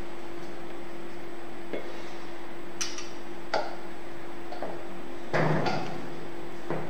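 A handful of separate clinks and knocks from kitchen utensils: a wire whisk and a plastic sieve against a stainless steel mixing bowl of batter, the loudest a little over five seconds in. A steady low hum runs underneath.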